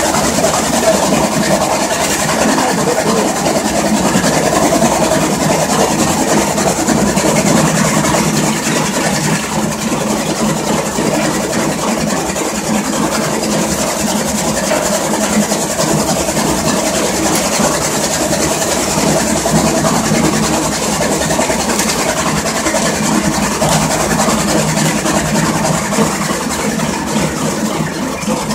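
Motor- and V-belt-driven double-geared steel chaff cutter running steadily under load, chopping dry fodder stalks as they are fed in.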